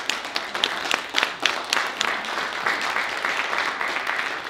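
Audience applauding: sharp individual claps at first, merging after about two seconds into steady applause.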